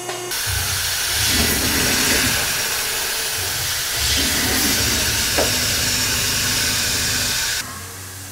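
CNC lathe turning a part under coolant: a steady loud hiss of coolant spray over the machine's low pulsing rumble. Near the end it cuts off abruptly to a quieter milling machine.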